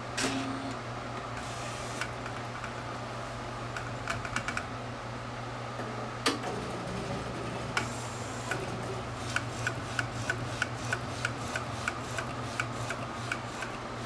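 AnaJet direct-to-garment printer running: the print head carriage travels along its rail over a steady motor hum, with scattered clicks and knocks from the mechanism. In the second half, an even run of ticks comes about three a second.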